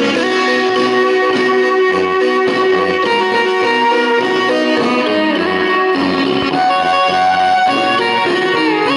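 A marimba ensemble playing a lively tune, with long rolled melody notes over a steady bass line.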